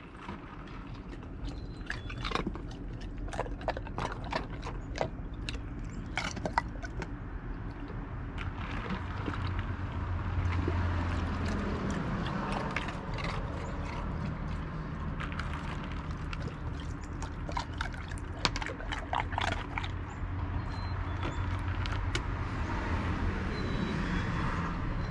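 Great Pyrenees dog crunching and lapping at ice cubes in a bowl of ice water: irregular sharp clicks and crunches with wet sloshing, over a steady low hum.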